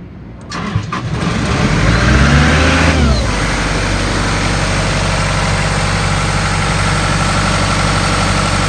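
John Deere diesel engine of a 1996 Ingersoll Rand air compressor starting right up: it cranks briefly about half a second in, catches, flares up in speed, and about three seconds in settles to a steady run.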